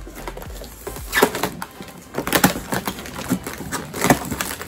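Cardboard shipping box being worked open by hand, with several short scraping and ripping noises as the packing tape and cardboard seam are slit and pulled apart.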